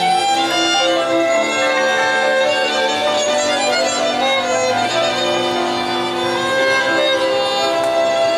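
Folk string band playing an instrumental passage, fiddles leading the melody over the band's accompaniment while the singers rest between verses.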